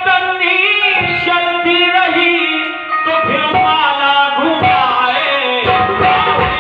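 Song with a voice singing a gliding melody over continuous instrumental accompaniment with tabla.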